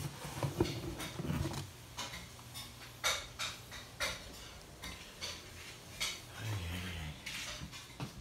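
A series of light clicks and knocks, spaced irregularly about a second apart, over a low steady hum.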